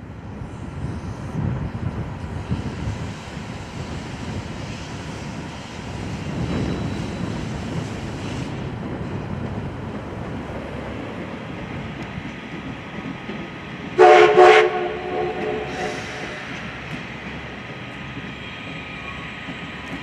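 A train running with a steady rumble. About two-thirds of the way through, one short, loud blast of its whistle or horn sounds several tones at once.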